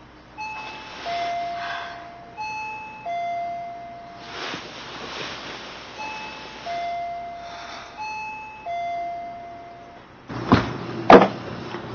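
Two-tone doorbell chime rung over and over: four ding-dongs, each a higher note falling to a lower one, about two seconds apart. Near the end come a couple of loud thumps.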